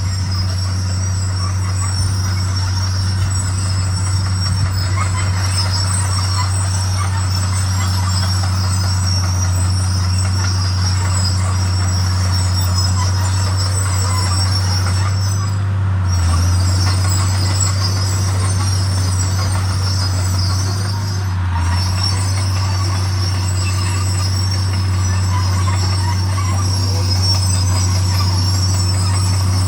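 Komatsu D41 crawler bulldozer working: its diesel engine runs with a steady low drone while the steel tracks give a continuous high-pitched metallic squeal and clatter. The engine note shifts briefly twice, about halfway through and again a few seconds later.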